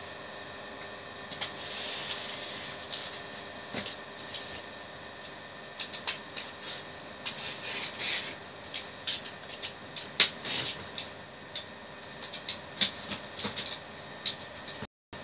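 A box cutter slitting packing tape on a cardboard shipping box: scraping, tape crackles and sharp ticks and taps on the cardboard, busier from about six seconds in, over a faint steady hum.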